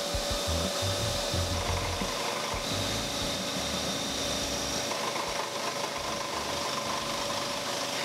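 A 16-inch Shop Fox scroll saw running, its blade cutting a hardwood board with a steady rasping hiss over an even motor hum.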